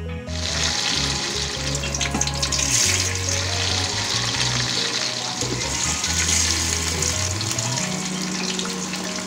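Small gochi (spiny eel) fish sizzling in hot oil in a frying pan as they are laid in one by one. The sizzle starts abruptly a moment in and stays loud and steady.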